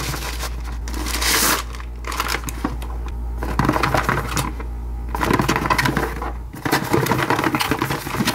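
Plastic mailer packaging crinkling and rustling as hands open it and handle a cardboard product box, a dense run of small crackles. A low steady hum stops about two-thirds of the way through.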